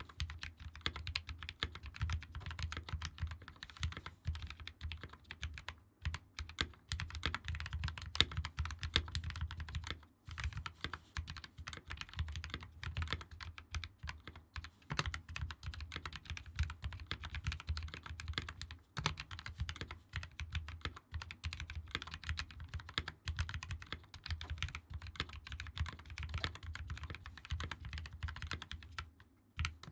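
Fast continuous typing on a custom 60% mechanical keyboard with lubed and filmed Gateron CAP switches, a brass plate, plastic case and GMK keycaps: a steady stream of key clacks with a few brief pauses.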